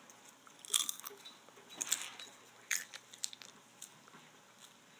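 Someone crunching and chewing food close to the microphone: three sharp crunches within the first three seconds, then a few fainter ones.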